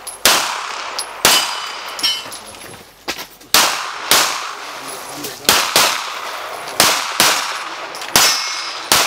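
Semi-automatic pistol firing about ten shots in a stage of practical shooting, singles and quick pairs, each a sharp report with a short echo. A few shots are followed by the faint high ring of a struck steel target.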